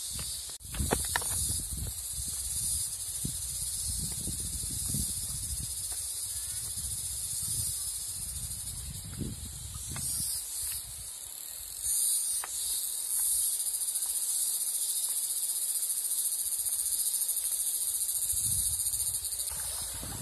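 Steady, high-pitched chorus of insects buzzing in sunny woodland, louder from about twelve seconds in. Low rumbling and knocks from walking over rocks and handling the camera sit under it in the first half.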